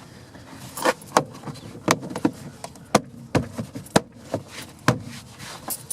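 Plastic door trim being pressed back into place on a car door: a string of about ten sharp clicks and knocks, irregularly spaced.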